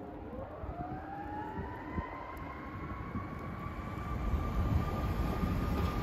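Fire engine siren winding up from a low to a high pitch over about three seconds, then holding a steady high tone. Under it, the low rumble of the truck grows louder near the end as it draws nearer.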